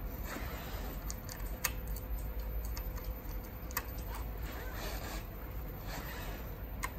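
A few light clicks of small bolts and washers being handled and fitted at a hydraulic disc-brake caliper mount, over a steady low hum.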